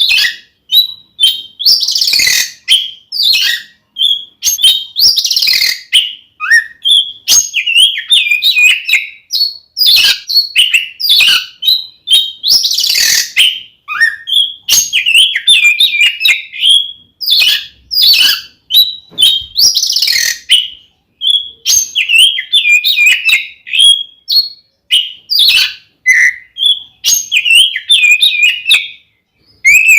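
Oriental magpie-robin (kacer) singing loudly and almost without pause: rapid, varied whistled phrases, broken every few seconds by harsh rasping notes. This is the aggressive 'fighting' song that is played to provoke other magpie-robins.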